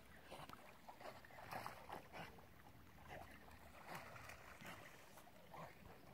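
Faint, irregular splashing of water from a dog swimming.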